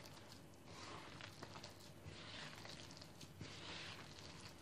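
Faint, irregular squishing and rubbing of hands kneading a soft, oily yogurt-and-margarine poğaça dough in a plastic bowl.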